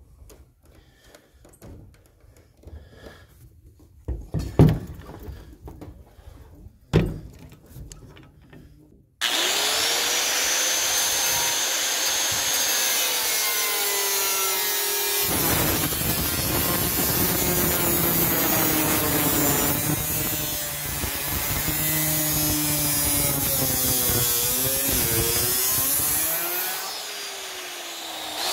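Two knocks, then a Makita circular saw with a 1 mm cutting disc starts suddenly and cuts through the sheet-metal roof of a van, its whine dipping and rising as it is pushed through the cut. It eases off briefly near the end, then picks up again.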